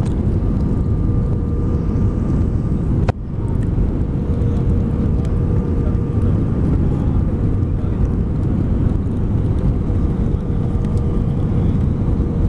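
Airliner landing: a steady low rumble of engines and airflow with a faint steady hum over it, broken by one sharp click about three seconds in.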